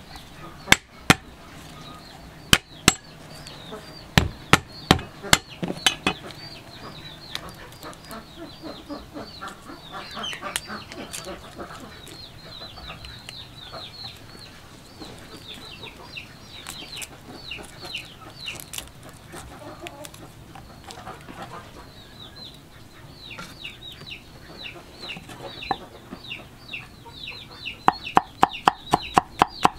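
Steel cleaver knocking on a wooden chopping board: a handful of sharp blows in the first six seconds as garlic cloves are smashed, then fast, even chopping near the end as the garlic is minced. Chickens cluck throughout.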